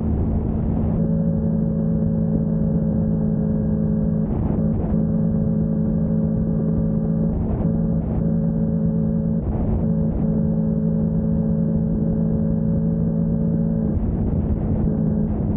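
Motorcycle engine running steadily at cruising speed, with tyre and wind noise on a wet road. Short rushes of noise come and go a few times.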